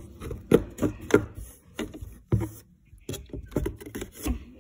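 Small plastic toy figures being tapped and knocked against a cardboard box: about half a dozen irregular short knocks.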